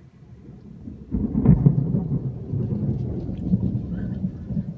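Thunder: a sudden low rumble breaks in about a second in, is loudest just after, and keeps rumbling heavily.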